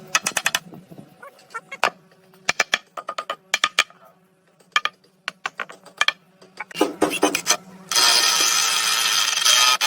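Woodworking tool work: quick runs of sharp clicks and taps. About eight seconds in comes a louder, continuous harsh noise lasting nearly two seconds, over a low steady hum.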